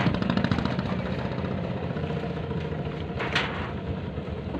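Boat engine running steadily with a fast, even beat, and one sharp crack about three seconds in.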